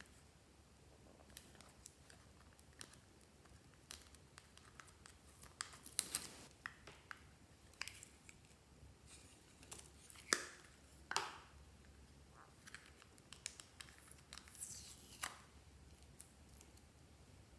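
Quiet, scattered clicks, crackles and crinkles from hands working clear slime and its mix-ins, with a few sharper snaps about six, ten and eleven seconds in.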